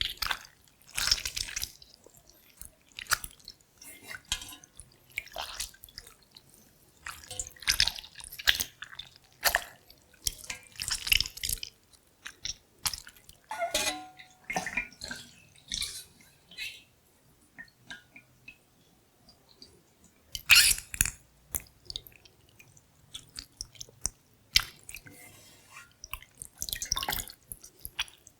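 Kombucha SCOBY being handled: irregular wet, slimy squelches and drips, separated by short pauses.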